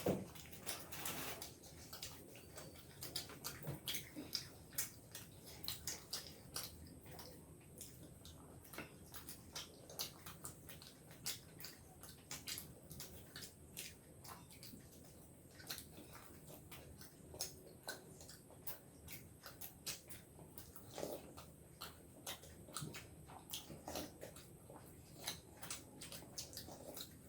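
People chewing and eating momos (steamed dumplings), with faint, irregular wet mouth clicks and smacks.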